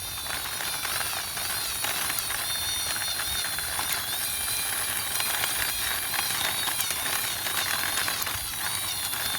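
Toy army jeep pushed along by hand, its plastic wheels and gears giving a steady whirring rattle with a wavering whine.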